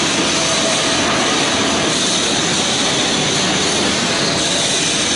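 Steady loud hiss and hum of an automatic TIG welding machine at work, with faint high whines running above it.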